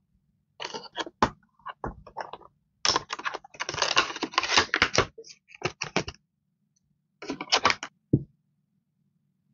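Clear plastic wrap crinkling and crackling in short bursts as it is peeled off rolls of washi tape, busiest in the middle and ending with a few sharp crackles.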